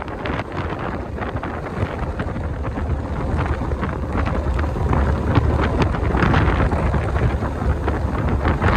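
Wind buffeting the microphone inside a car: a heavy, gusty rumble that grows louder toward the end.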